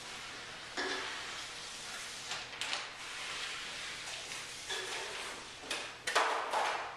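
A series of short scraping and rustling noises, irregularly spaced about a second apart, from objects being handled and moved on the floor, the loudest stretch near the end.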